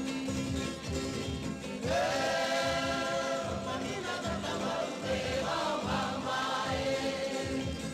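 Background music: voices singing together in held notes over an instrumental accompaniment, the singing coming in about two seconds in.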